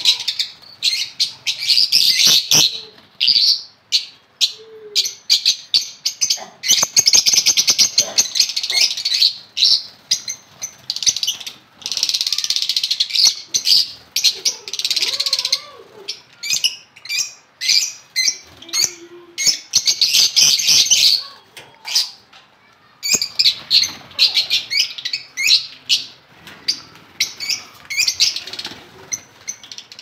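A colony of lovebirds chattering: a dense mass of rapid, high-pitched calls that comes in loud spells of a few seconds with brief lulls between.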